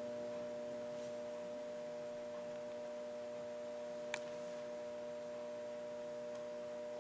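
Faint steady hum made of several steady tones over a light hiss, with a single small click about four seconds in.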